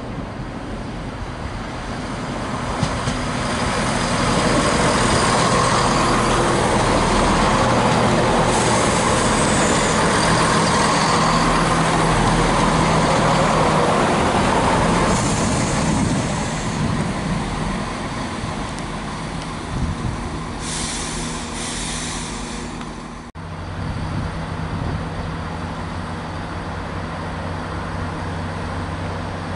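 A CrossCountry Class 170 Turbostar diesel multiple unit running along the platform past the listener. Its engines and wheels on the rails build up over a few seconds, stay loud for about ten seconds, then fade. After a sudden cut near the end comes a steadier, lower diesel hum from the next trains in the station.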